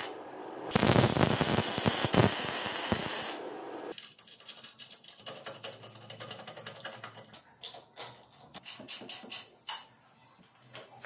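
Arc welding on steel, a loud steady crackle for about three seconds, followed by a run of light, irregular metallic clicks and taps.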